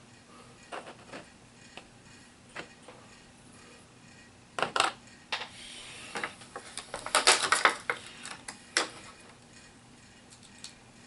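Hard plastic clicking and tapping from handling HeroClix miniature figures and their booster packaging, with a short crinkle about five seconds in and a quick run of clicks around seven to eight seconds.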